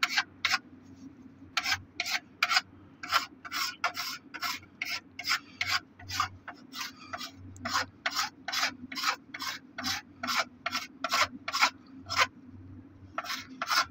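Hand scraper peeling the outer surface off an HDPE pipe in short, repeated scrapes, about two to three a second, pausing briefly about a second in and again near the end: surface preparation for an electrofusion saddle fitting.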